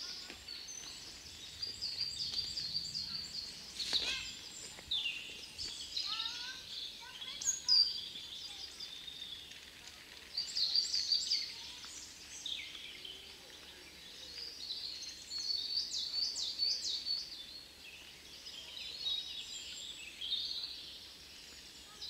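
Several songbirds singing and calling, overlapping chirps and trills that come and go in bouts.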